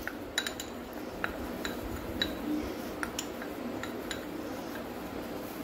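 Steel spoon clinking and scraping against a small ceramic bowl while cornflour is spooned out: about a dozen light, separate clinks spread through.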